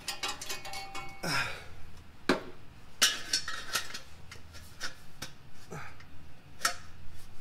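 Aluminized steel muffler and exhaust pipe knocking and scraping as the muffler is worked by hand onto a tight-fitting pipe joint: a series of sharp metal knocks, the first ringing briefly.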